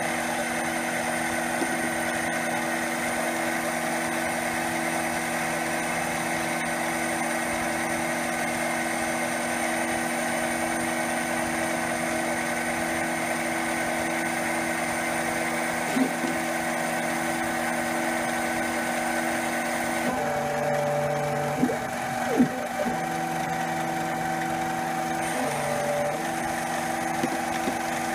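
CNC mini lathe running under its stepper-motor program, with a steady machine hum and whine as a two-flute end mill bores into aluminum. About 20 seconds in the tones change pitch, with a couple of sharp clicks, and they shift again about 25 seconds in.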